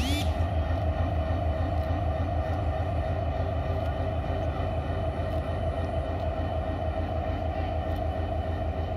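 Diesel-electric locomotive 3010 idling steadily, a constant low engine hum with a steady higher tone over it.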